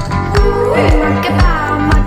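Background music: a song with a steady beat, kick drum about twice a second, and a sung melody line.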